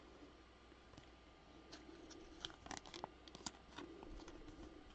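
Faint, scattered clicks and light rustling of stiff, glossy Topps Chrome trading cards being slid and flipped through by hand, mostly from about two seconds in.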